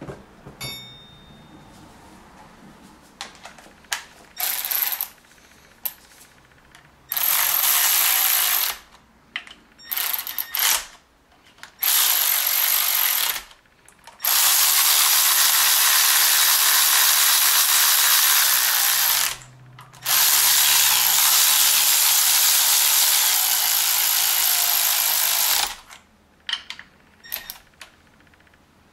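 Power ratchet running down the 10 mm nuts on a BMW single-VANOS unit's studs, in stop-start bursts: several short runs, then two long runs of about five seconds each, with a few short clicks near the end.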